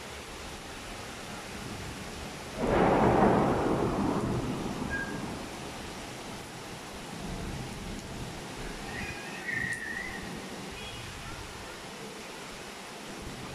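Steady rain falling, with a sudden loud thunderclap about three seconds in that rumbles and fades away over the next few seconds.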